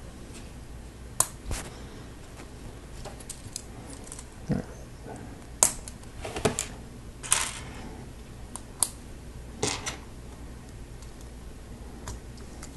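Lego Technic plastic pieces being handled and pressed together: irregular clicks and light knocks, a dozen or so, with small rattles between them.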